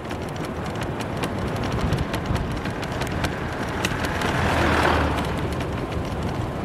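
Van driving past, its engine and tyre noise building to a peak about five seconds in, then easing off.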